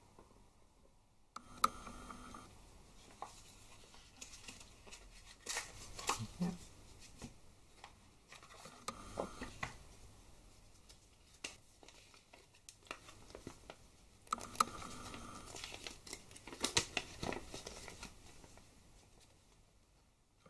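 Hands handling a small camera box and unfolding a folded paper instruction leaflet: faint, irregular paper rustling and crinkling with scattered light clicks and taps.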